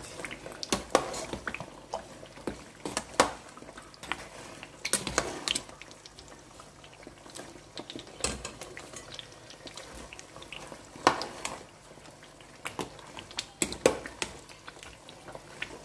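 A spoon knocking and scraping against a pot as meat is stirred into thick fried tomato stew, with irregular clinks.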